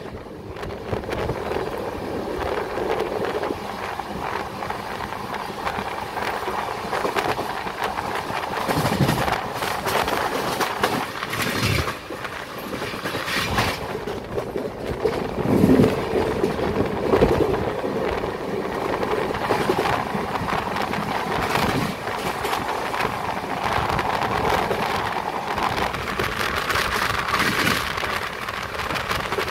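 Passenger train running, heard from an open coach doorway: a steady rumble of wheels on the rails with repeated clacks as they cross rail joints.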